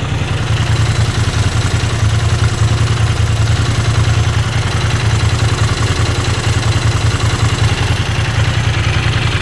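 Moto Guzzi V7 III's air-cooled transverse V-twin idling warm in neutral with the clutch let out, running with a steady rough rattle that the owner calls a "bucket of bolts" and that goes smooth when the clutch is pulled in.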